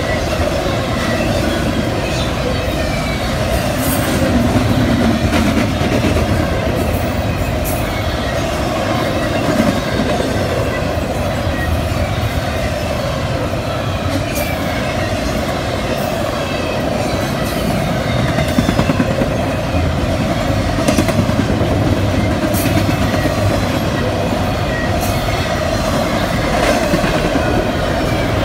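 CSX double-stack intermodal freight train rolling past: a steady rumble of steel wheels on the rails, with occasional sharp clicks and clanks from the passing cars.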